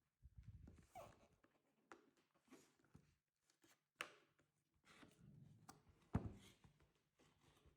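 Faint handling noises of a model's box and packaging being opened: scattered rustles and small taps, with a sharper click about four seconds in and another about six seconds in.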